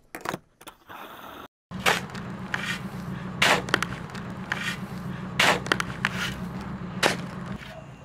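Feet scuffing and kicking through loose dirt, a sharp scrape or swish every half-second to a second, over a low steady hum.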